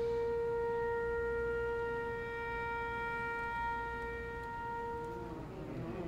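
Flute holding one long steady note, which stops near the end as singers' voices come in with wavering lines.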